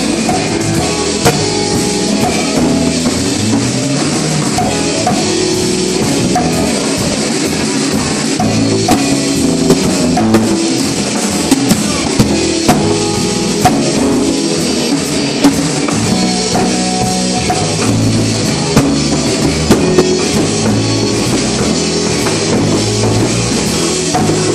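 Live blues-rock band playing: drum kit, electric bass, electric guitar and organ, with the drums prominent. Sharp drum hits stand out over the band in the second half.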